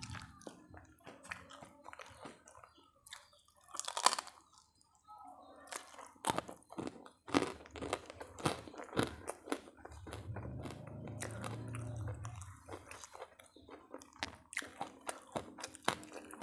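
Close-miked eating: crunching and chewing of crispy food, with many sharp crunches and one loud bite about four seconds in.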